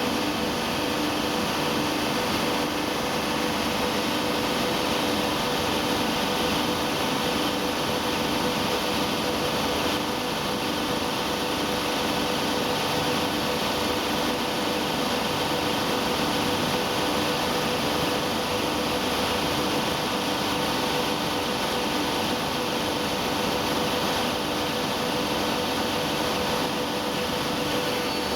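Factory machinery of a polyester staple fiber line and baler running steadily: a continuous mechanical hum with several steady tones, one of them pulsing, over an even hiss.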